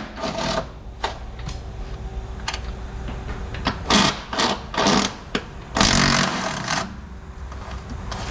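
A ratchet wrench rattling in a string of short bursts, one longer run of about a second, as the nuts at the top of a Mercedes GLC 300 strut mount are run off, with a few single clicks between.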